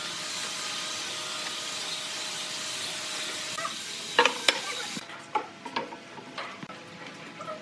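A steady hiss for the first few seconds, then pine boards knocking as they are set down and handled on a wooden workbench: two sharp knocks about four seconds in, followed by a few lighter ones.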